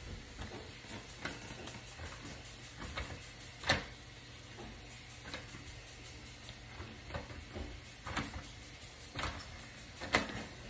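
Handling noise from a phone camera moving about close to surfaces: scattered soft knocks and rubbing, with a sharper knock a little under four seconds in and another near the end.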